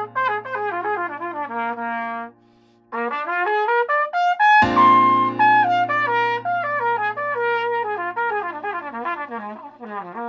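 Trumpet improvising on the chord tones of a C7 chord (B-flat 7 concert): root, third, fifth, seventh and ninth, in quick arpeggio runs climbing and falling, with a short break about two seconds in. A steady low drone note sounds underneath.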